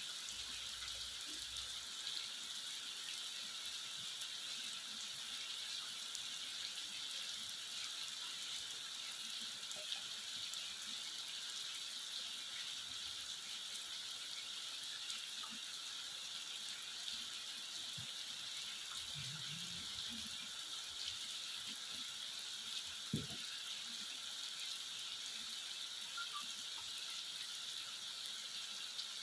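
Rain falling steadily on a wet asphalt road, an even hiss. One brief knock about three quarters of the way through.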